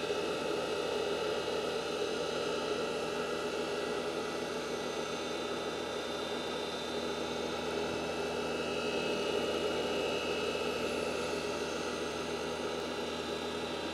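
Valve grinding machine running, its green silicon carbide stone spinning while an oiled diamond dresser makes one light dressing pass across it: a steady hiss over a motor hum. The hiss swells slightly with a thin high tone from about eight to eleven seconds in.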